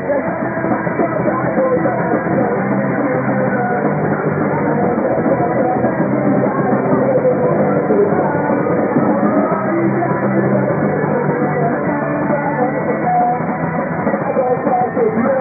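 Live rock band playing loud with electric guitars and a drum kit, heard amid the crowd in the room.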